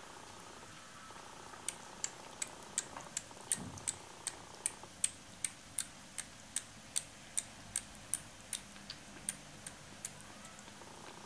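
Maine Coon kittens about four weeks old: a long run of light, evenly spaced clicks, about two to three a second, over a faint steady background, with a short low call about three and a half seconds in.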